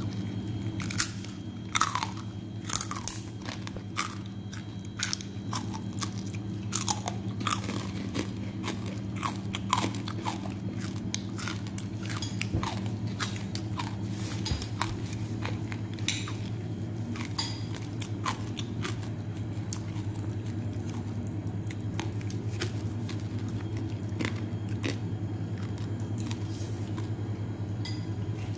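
A person chewing crunchy fried pork rinds and papaya salad: sharp crackling crunches, thickest in the first half and dying away after about 17 seconds, over a steady low hum.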